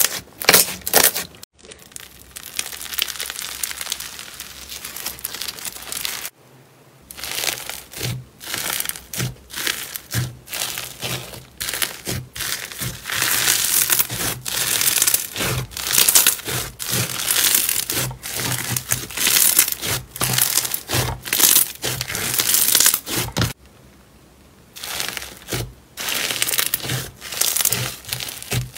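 Slime being squeezed and pressed by hand, making repeated crackling, crunching squishes in quick bursts, with two brief lulls, about six and twenty-four seconds in.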